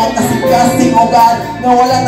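Live worship band playing with a steady beat: keyboard, electric guitar and drum kit.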